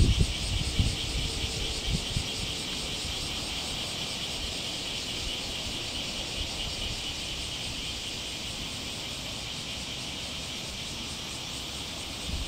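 Steady high chorus of insects chirring. There are a few low bumps and rumble in the first two seconds.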